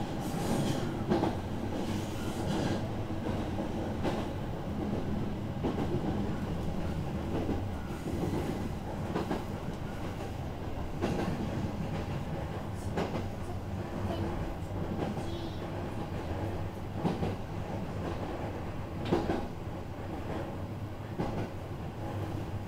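Running noise inside a JR East 209 series electric commuter train: a steady rumble of steel wheels on rail, with a sharp clack from the rail joints every one and a half to two seconds.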